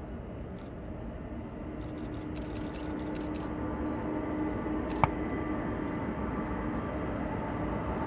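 Jet engines of a large airliner running at taxi power: a steady drone with a held whine that slowly grows louder. A single sharp click about five seconds in.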